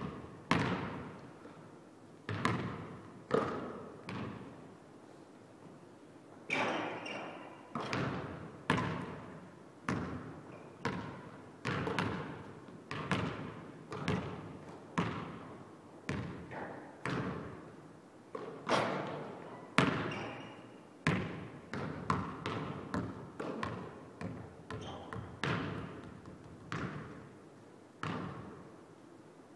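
A basketball bouncing on a hardwood gym floor, about two dozen separate bounces at uneven intervals of roughly a second. Each bounce echoes and dies away in the large, empty hall.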